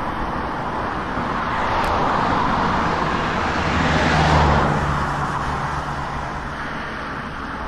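A pickup truck passing close by on the road, its tyre and engine noise swelling to a peak about four seconds in, then fading away.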